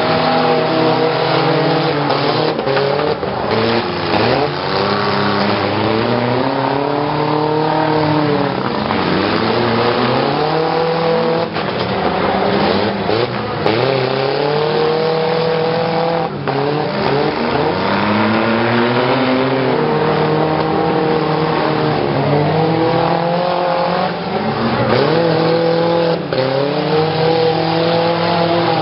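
Several pickup truck engines revving hard, their pitch climbing and falling over and over as the trucks ram one another, with a few sharp crashes of impact.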